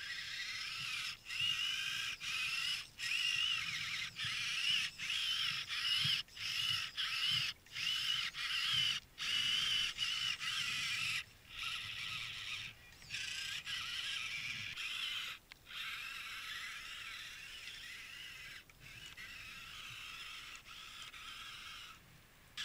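Electric motor and gear whine of a small Losi Trail Trekker RC rock crawler, cutting in and out in short bursts as the throttle is worked over loose dirt. It becomes steadier and fainter after about fifteen seconds.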